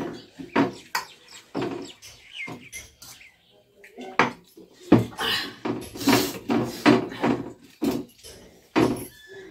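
Stainless steel plates and tumblers clinking and knocking irregularly as a family eats by hand, the knocks coming thickest about halfway through.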